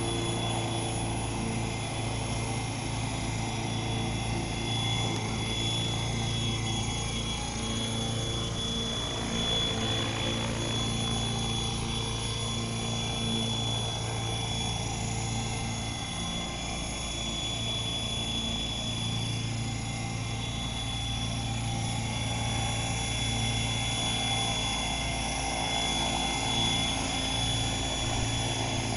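RC model helicopter hovering, its motor and rotors running steadily with a constant high whine over a lower hum. It stays running after it sets down near the end.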